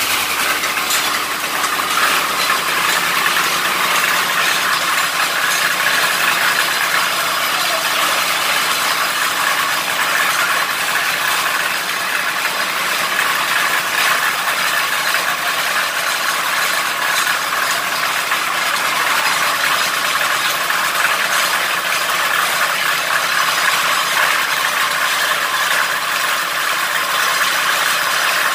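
Borewell drilling rig running steadily, its belt-driven rotary head turning the drill pipe in the borehole, with a continuous fast mechanical clatter.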